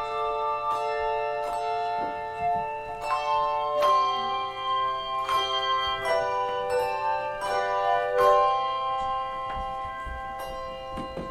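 Handbell choir playing: chords of hand bells struck about every three-quarters of a second, each ringing on under the next.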